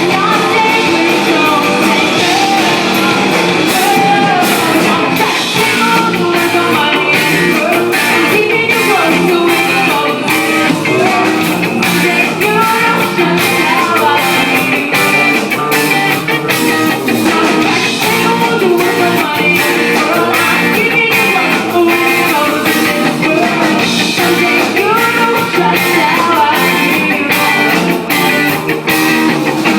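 Live rock band playing loudly: a voice singing over guitar, with sharp beats running through.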